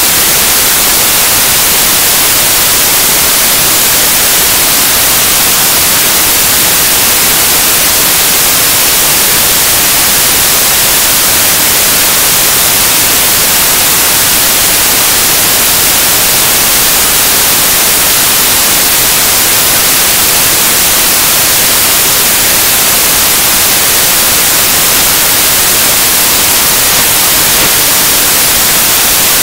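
Loud, steady hiss of static, even and unbroken, brightest in the high end, with no music or voices over it.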